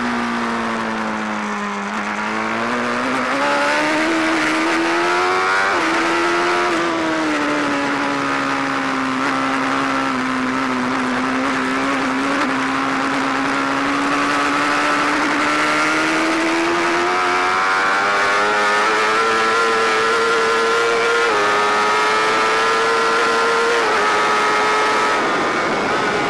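Onboard sound of a BMW sports motorcycle's engine at track speed. The engine note dips, rises and holds through the bends, then climbs steadily down the straight, with brief jumps in pitch at the gear changes, over steady wind rush.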